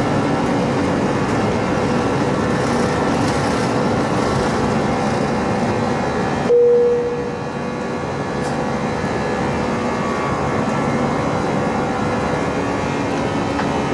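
Airbus A340-300's four CFM56 turbofan engines running at takeoff thrust, heard from inside the cabin over the wing as the aircraft lifts off and climbs. The noise is steady, broken about halfway through by a brief louder tone and a short drop.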